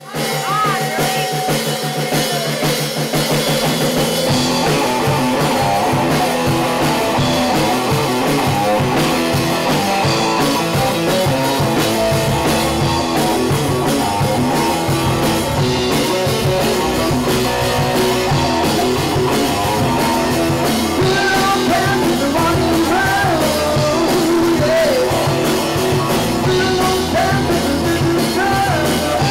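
A live rock band playing loudly, with a drum kit, electric bass and electric guitar. A man sings into the microphone in the second half.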